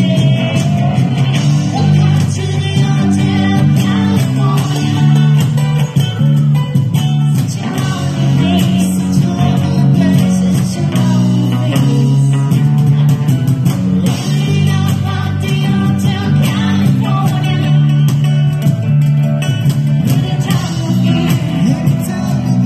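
Live band: a woman singing into a microphone over acoustic guitar and electric bass guitar, playing continuously.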